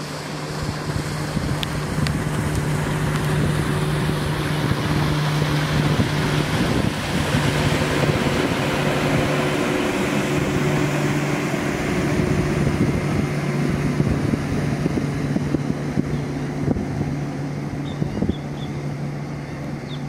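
A motor engine running with a steady low hum, under wind noise on the microphone. The rushing noise swells through the middle and eases off near the end.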